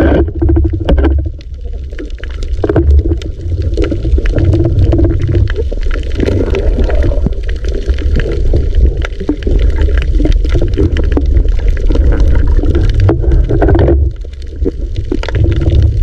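Underwater noise picked up by a submerged camera: a steady low rumble of moving water with many scattered sharp clicks, dipping briefly near the end.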